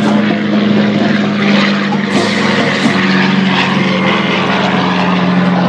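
Twin-engine piston propeller airliner climbing out just after takeoff, its engines giving a loud, steady drone whose pitch sinks slightly over the last few seconds.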